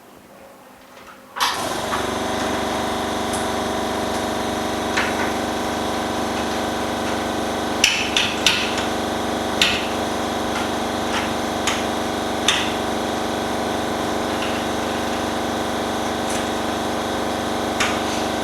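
A machine motor switches on suddenly about a second and a half in and keeps running with a steady, many-toned hum. Light clicks and taps from handling sound over it every second or few.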